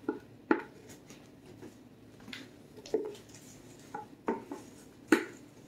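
Spatula, mixing bowl and metal cake pans knocking and clinking as cake batter is scraped from the bowl into the pans: about half a dozen sharp, irregular knocks, the loudest near the end.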